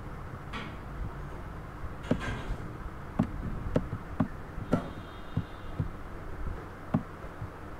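Computer mouse clicking, about nine short sharp clicks at irregular intervals over a steady low background hum.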